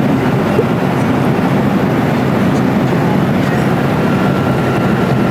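Steady noise of an airliner in flight heard inside the passenger cabin: the constant low rush of jet engines and airflow.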